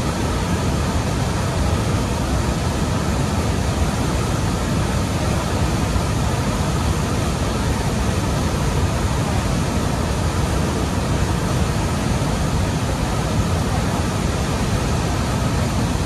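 Large waterfall plunging into a churning pool: a loud, steady, deep rush of falling water.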